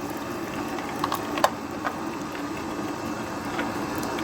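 Water running steadily as it flows through a cleaned dishwasher part, with a few light clicks about a second in.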